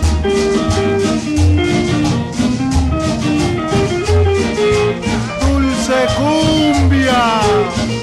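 Cumbia music played loud, with a regular bass beat and held instrumental notes and no singing. Sliding notes come in about six seconds in.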